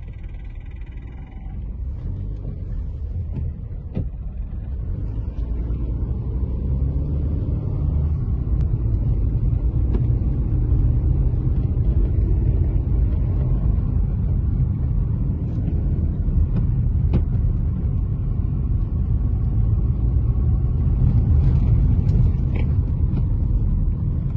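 Car road and engine noise heard from inside the cabin: a steady low rumble that grows louder over the first several seconds and then holds.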